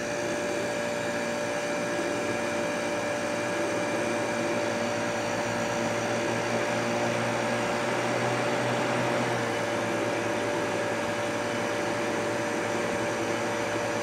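Kenmore dehumidifier running: its fan and compressor give a steady whoosh and hum with a steady tone through it. The compressor is running on two marginal 15 µF start/run capacitors wired in parallel, which got it to start at once, confirming that the original capacitor is bad.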